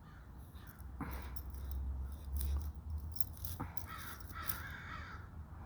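Crows cawing at a large bird raiding their nest, a few caws spread through, over a low rumble.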